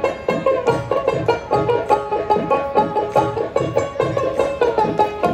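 Live band playing an instrumental: a plucked string instrument picks out a fast melody over a steady drum beat of about two strokes a second.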